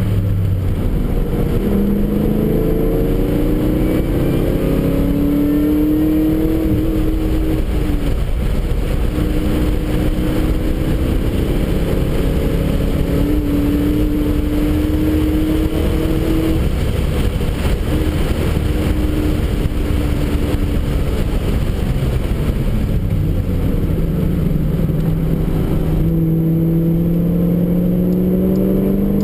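Car engine heard from inside the cabin while being driven on a race track, its pitch climbing under acceleration and holding steady in between, over constant road and wind noise.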